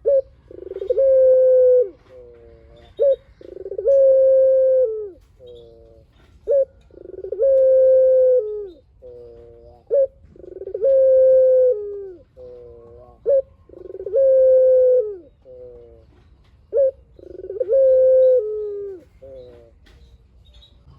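Barbary dove (burung puter) cooing in long drawn-out phrases. Each phrase is a held coo that drops at its end, followed by a run of short quick coos, and it repeats about every three and a half seconds, six times over.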